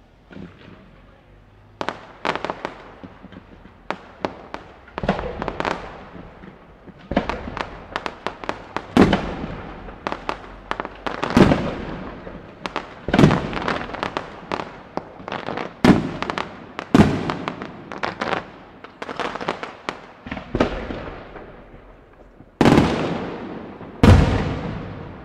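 Aerial firework shells bursting in a rapid, irregular series of sharp bangs, each trailing off in an echoing rumble, with clusters of smaller cracks in between. The bangs begin about two seconds in, and the loudest come near the end.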